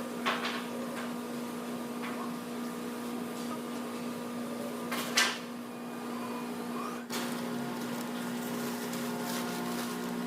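A steady machine hum with a few sharp knocks, the loudest about five seconds in.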